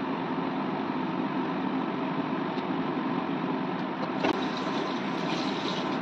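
Raw chicken drumsticks going into a kadai of masala gravy over a steady mechanical hum. A little after four seconds in there is a sharp knock, and then a wooden spatula stirring and scraping the drumsticks around the aluminium kadai.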